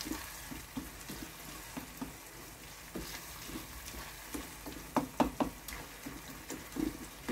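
Wooden spoon stirring and scraping a sizzling tomato, garlic and ginger mixture in a nonstick frying pan as it fries, with a few sharper knocks of the spoon against the pan about five seconds in.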